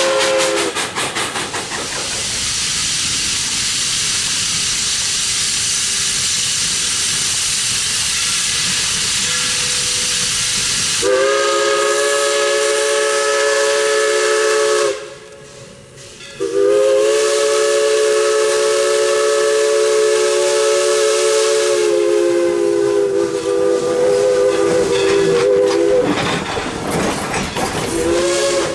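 A steam train working past with a steady rush of steam hiss, the tail of a chime whistle ending just as it begins. Then a steam locomotive's multi-note chime whistle blows long blasts: one of about four seconds, a short break, then a long blast that sinks a little lower in pitch and fades as the engine passes. Cars roll by clattering, with a short whistle near the end.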